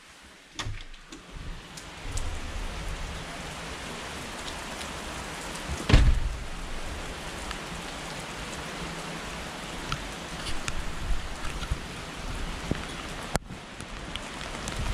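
A few clicks from a door handle, then a steady heavy downpour hissing on the wet street and parked cars, with scattered drops ticking close by. About six seconds in comes one loud, deep thump.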